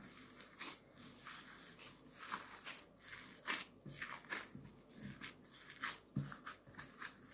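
Risen yeast dough being punched down and pressed by a gloved hand in a glass bowl, knocking the air out of it: faint, irregular squishing and tearing of the dough with a few soft dull knocks.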